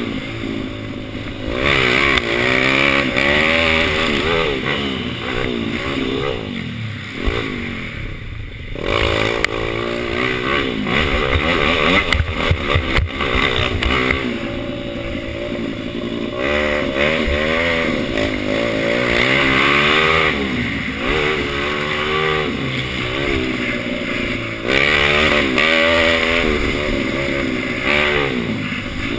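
Kawasaki KLX110 mini dirt bike's four-stroke single-cylinder engine, heard from on the bike, revving up and down over and over as the rider opens and closes the throttle around a dirt track.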